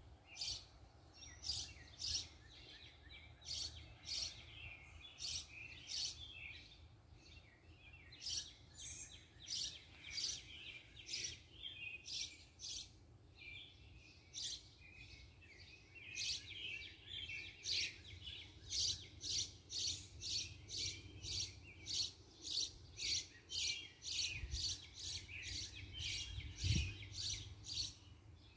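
Songbirds chirping: a long run of short, sharp repeated chirps, scattered at first and then coming steadily about two a second in the second half.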